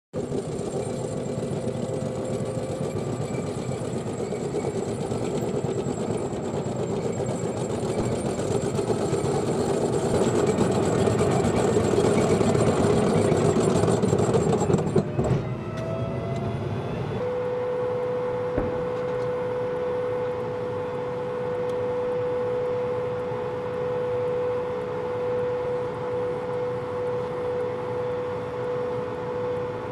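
M1A1 Abrams tank's gas-turbine engine running: a loud rumble with a steady high whine that builds over the first half. After a break about 15 seconds in, it settles to a quieter, steady run with one held tone.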